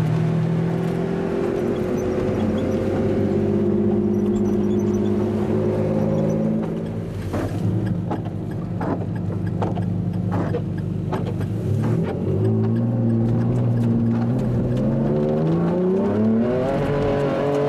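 Supercar engine heard from inside the cabin, running at steady revs at first, then easing off with a run of sharp crackles. In the last few seconds it accelerates, its note rising in pitch through a gear change and a long climb.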